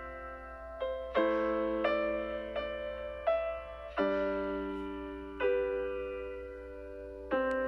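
Slow, gentle solo piano music: chords struck every second or so, each left to die away.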